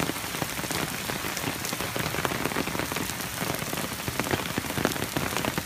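Heavy rain falling on a flooded street: a steady, dense hiss made of countless small drop hits.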